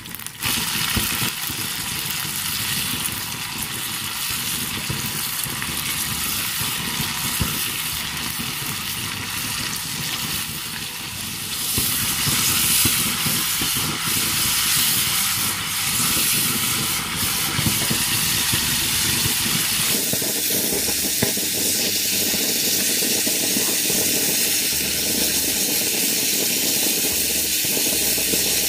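Chicken hearts deep-frying in a small wok of hot oil: a steady sizzling hiss, with the light clicks of a metal spatula stirring now and then. The sizzle grows a little louder about twelve seconds in.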